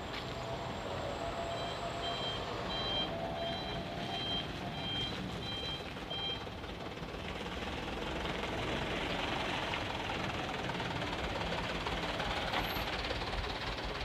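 Light cargo truck's reversing beeper sounding a steady series of short high beeps, about one and a half a second, over the low running of the truck's engine. The beeps stop about six and a half seconds in, and a constant rushing wash of noise grows louder after that.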